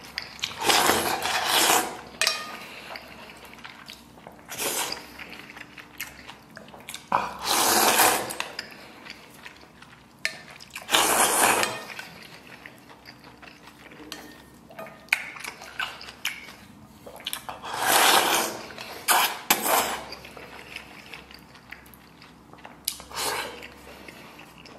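Noodles slurped from a spicy broth in about eight separate noisy pulls, each up to about a second long, with light clicks of chopsticks against a metal bowl between them.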